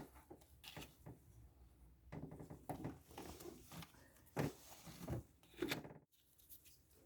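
Faint handling noises: scattered short clicks, taps and rubbing, a few of them louder, stopping a second before the end.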